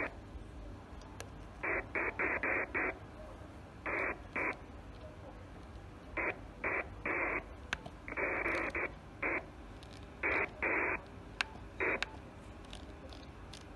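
Received radio audio from an HF transceiver's loudspeaker on a busy 27 MHz FM channel. It comes as a string of short bursts, each under a second, cut off above the voice band, over a low steady hum.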